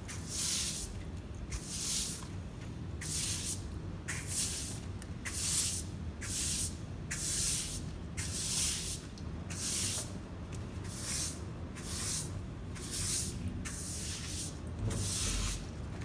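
Stiff plastic-bristle broom sweeping wet sand and cement grit across a concrete floor, one scraping stroke about every second.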